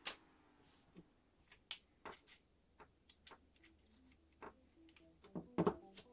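ASG Scorpion EVO 3 metal gearbox shell being handled, turned over and set down on a wooden table: scattered sharp clicks and knocks of metal on wood. The loudest knock comes right at the start, with another cluster about five and a half seconds in.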